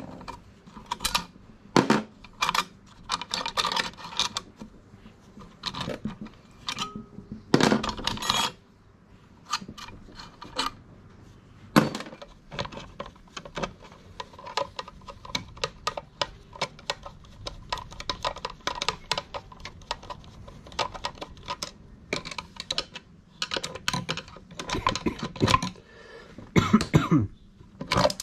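Metal parts and hand tools of a sewing machine being taken apart: irregular clinks, knocks and scrapes as pieces are handled, pushed and set down.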